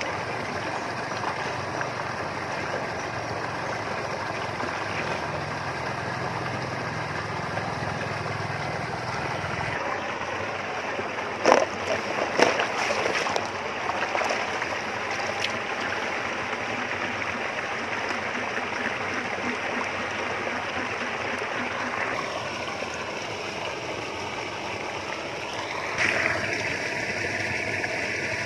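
Steady rush of flowing water, with a few sharp knocks or splashes partway through.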